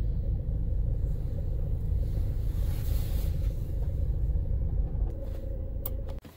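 Engine and road rumble heard inside the cabin of a modern automatic vehicle moving slowly, with a steady hum. About six seconds in the engine is switched off with the push-button start/stop, and the rumble cuts off suddenly.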